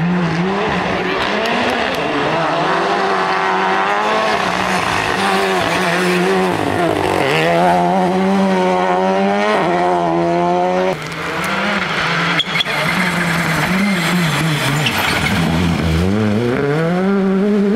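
Rally cars' engines revving hard under acceleration, the pitch climbing and falling back with each gearshift: first the Renault Clio Rally3, then the Citroën C3 Rally2 near the end. A couple of sharp cracks sound about two thirds of the way through.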